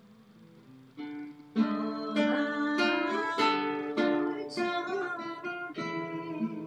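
Guitar accompaniment: a quiet first second, then plucked and strummed chords ringing out from about a second and a half in.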